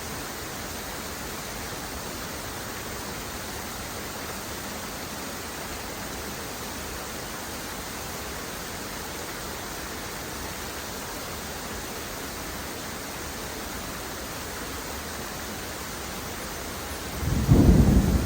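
Steady, even hiss of heavy rain. About a second before the end, a loud low rumble of thunder breaks in.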